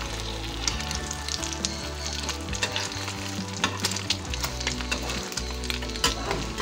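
Beaten egg and a slice of bread frying in hot mustard oil in a metal pan: a steady crackling sizzle, with occasional clicks of a metal spatula pressing the bread down.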